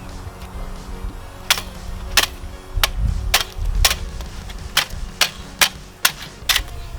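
Background music with a sharp, clicking percussive beat about every half second over a low rumble.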